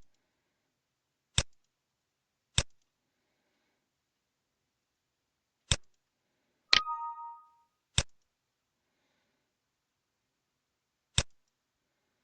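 Computer mouse clicks, about seven single clicks a second or a few seconds apart. About seven seconds in, one click is followed by a brief two-tone electronic chime.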